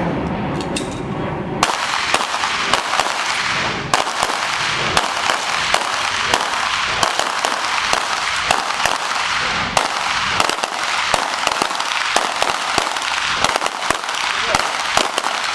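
Rapid, irregular 9mm pistol fire from several Glock 17 and 19 pistols shooting at once, shots overlapping one another, growing dense about a second and a half in.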